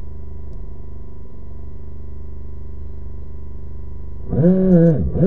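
RC jet boat's electric motor and water-jet pump running at a steady pitch, then revved up and back down about four seconds in, with another rev starting at the end, as the boat struggles to move in very shallow water.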